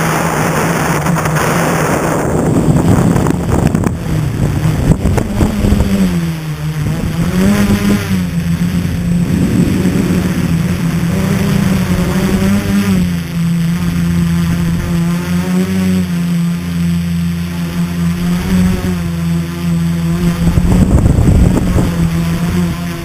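Scratch-built tricopter's three electric motors and propellers whining steadily in flight, the pitch sagging and rising a few times as the throttle changes. A rush of air noise covers the first couple of seconds.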